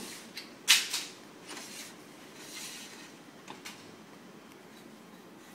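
Parts of an opened laser printer being handled during drum removal: two sharp clicks close together about a second in, then short sliding sounds and a few lighter clicks.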